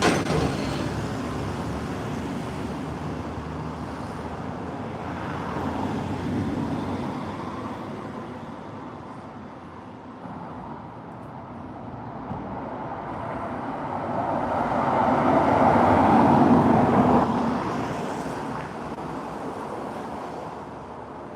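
Road traffic: vehicles passing, each one swelling and fading over a few seconds, the loudest pass about three-quarters of the way through.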